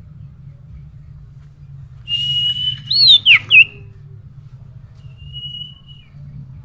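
Common iora (cipoh) calling: a long whistle held at one pitch about two seconds in, then a few loud looping notes that sweep up and then down, and a fainter drawn-out whistle a little later. A low steady hum runs underneath.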